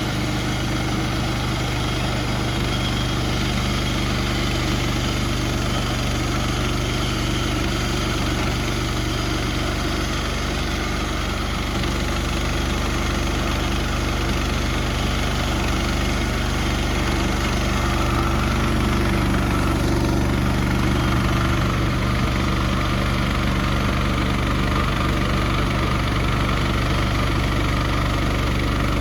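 Portable sawmill's engine running steadily at a constant speed.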